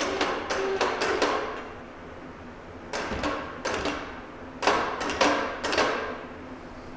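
Steel clanking and knocking: a heavy steel plate and 1-2-3 blocks being shifted and set against the boring mill's angle plates. Sharp metal hits with brief ringing come in three bunches, near the start, about three seconds in, and again around five seconds in.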